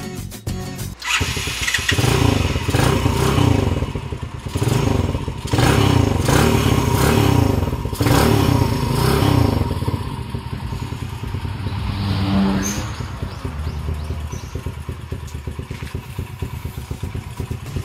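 Sachs MadAss 125's Cub-type horizontal single-cylinder engine starting about a second in and revving unevenly, then settling to a steadier, quieter run for the second half.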